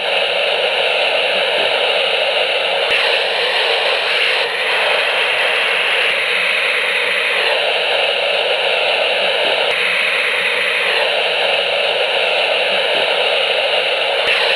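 Compressed air leak heard through an ultrasonic leak detector's heterodyned headphone output: a steady, loud rushing hiss, shifting slightly in texture every few seconds.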